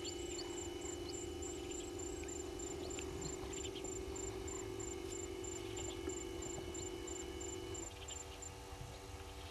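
Pan-and-tilt motor of a remote-controlled outdoor camera whirring steadily as the camera swings round, stopping near the end.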